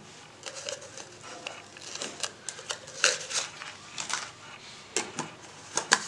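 Crumpled paper packing rustling and crackling as it is shaken out of a clear plastic blender bottle, with irregular light plastic knocks from handling the bottle.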